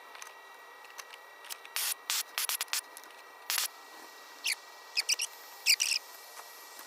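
Short crinkling and rustling handling noises, about a dozen quick bursts, the loudest ones near the end, over a faint steady high hum.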